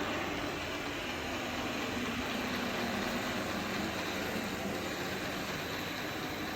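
Robot vacuum cleaner running, a steady whirring hum with no breaks.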